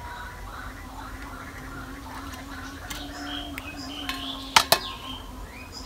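Tilapia being cut by hand with a knife on a wooden board, with two sharp knocks in quick succession about four and a half seconds in. Birds chirp and a steady low hum runs behind.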